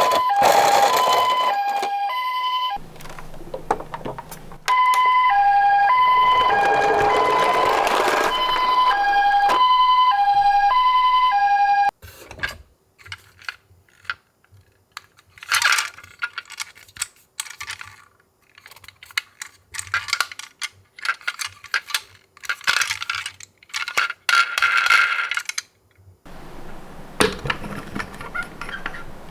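Toy ambulance's electronic siren playing the two-tone hi-lo wail of a Japanese ambulance, with a short break about three seconds in. It cuts off at about twelve seconds, and irregular small plastic clicks and rattles follow.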